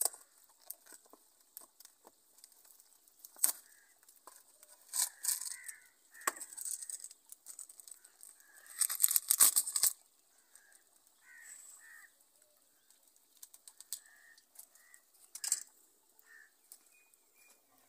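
A small spice packet being torn open and handled: scattered crinkles and clicks, with a louder tearing rustle about nine seconds in.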